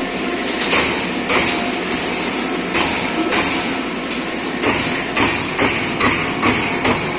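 CNC punch press punching sheet metal: a series of sharp metallic strikes over the machine's running noise. The strikes are spaced unevenly at first and come about three a second in the second half.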